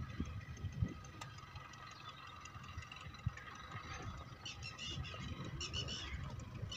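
Small birds chirping in quick bursts from about halfway through, over low rumbling gusts of wind on the microphone.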